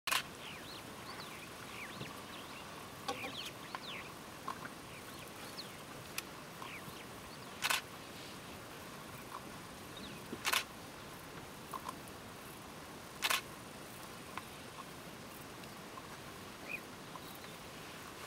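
Wild birds calling: scattered short chirps and whistles over a steady background hiss. Three loud, harsh double calls come about three seconds apart.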